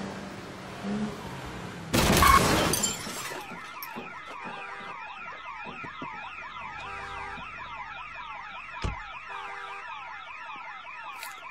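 A Range Rover Sport reverses into a parked car with a loud crash and breaking glass about two seconds in. A car alarm then goes off, its electronic tones rising and falling over and over, with a short thud near the end.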